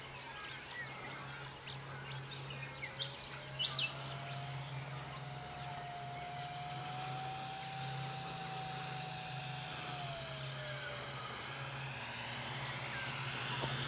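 Radio-controlled RV-8 model plane's motor and propeller passing overhead on its landing approach. Its thin drone rises in pitch over a few seconds and then falls away as the plane passes, over a steady low hum. A few bird chirps come about three seconds in.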